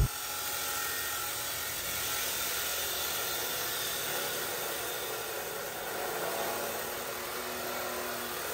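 Laxton LX249 14-inch abrasive cut-off saw grinding through a thick-walled steel pipe. The abrasive disc makes a steady, even grinding noise under load.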